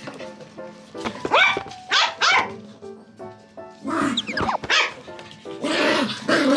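Toy poodles barking during play: a string of short, loud barks and yaps, over background music.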